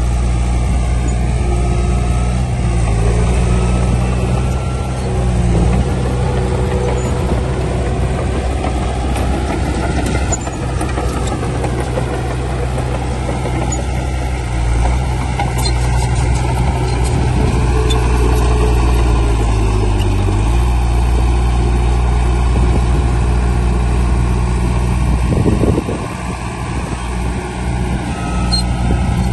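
Heavy diesel engine of earthmoving machinery running steadily, its note shifting about twenty seconds in.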